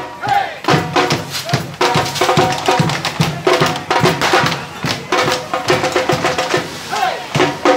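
Street drum band (bass and snare drums) beating a fast, loud rhythm, with a steady pitched melody sounding in short phrases over the beat.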